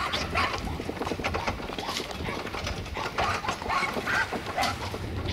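Horse-drawn wooden farm cart moving off: irregular hoof clip-clops and the cart's rattling and knocking.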